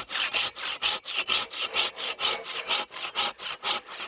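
Hand saw cutting through firewood, with rapid back-and-forth strokes of about four a second that rasp evenly.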